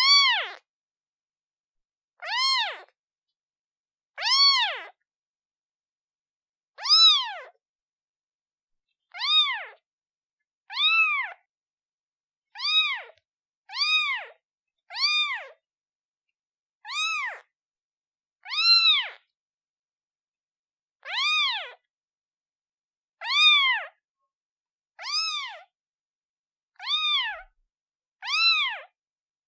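Newborn kitten meowing for its mother: a long series of short, high meows, each rising and then falling in pitch, coming about every one to two seconds.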